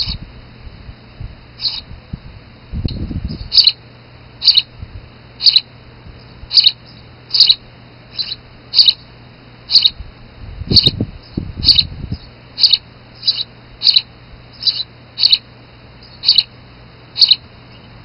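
Sparrow chirping: short, sharp, high chirps repeated about once every half-second to a second, starting a few seconds in and running on until shortly before the end. Low rustling is heard twice, about three and eleven seconds in.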